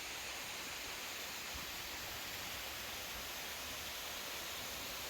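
Steady rush of a mountain valley stream's flowing water, an even hiss that neither rises nor falls.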